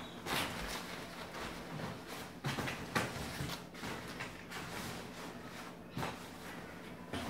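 Nylon fabric of a portable travel cot rustling, with a few sharp plastic clicks and knocks from its frame as it is handled and folded.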